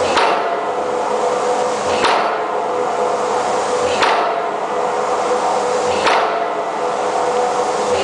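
Impact hammer driving an open-ended steel pipe pile: a sharp metallic blow about every two seconds, with the steel pipe ringing in steady tones between blows.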